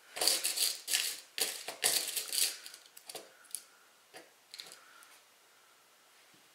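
Cotton fabric rustling close by as it is handled and folded into a pleat, in several loud bursts over the first two and a half seconds. Then a few light clicks as a pin is picked from a small plastic pin box, and faint rustles.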